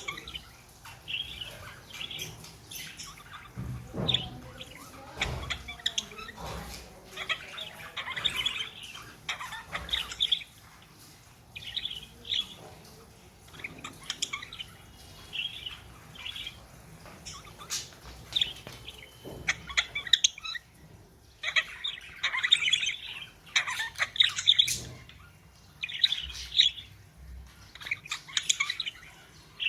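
Pet budgerigars chirping and chattering: a busy run of short, high chirps and squawks in clusters, with brief pauses between.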